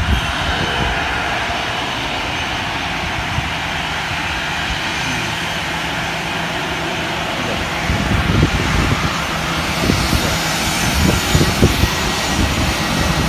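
Aeroplane engines running, heard as a steady, even roar across the airfield, with irregular low buffeting on the microphone in the second half.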